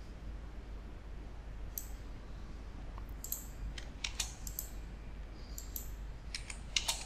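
Computer mouse and keyboard clicks, scattered and irregular, with a quick cluster near the end, over a faint steady low hum.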